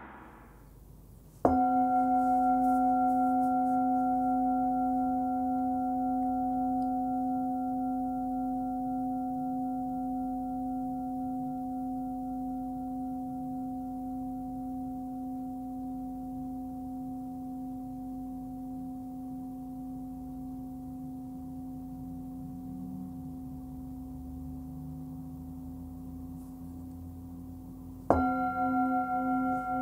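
Nepali singing bowl, 16.4 cm across and tuned to about 260 Hz (C), struck with a mallet about a second and a half in and left to ring. It gives a deep tone with several higher overtones, fading slowly over some 25 seconds with a slight wavering beat. It is struck again near the end.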